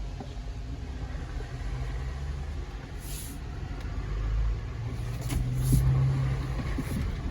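The 3.6 Pentastar V6 of a Jeep Gladiator Rubicon runs at low speed on an off-road trail, heard from inside the cab, its low drone swelling in the second half. A few short knocks and rattles come about three seconds in and again near the end.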